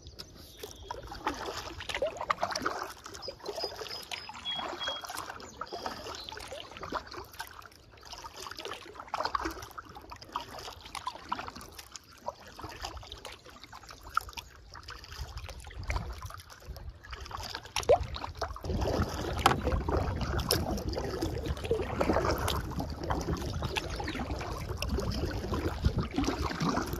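Water lapping and sloshing against a canoe hull, with small splashes every couple of seconds and a few light clicks. About two-thirds of the way in, a louder low rumble joins and runs on.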